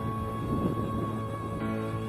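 Background music: sustained, droning chords held through, with a chord change near the end.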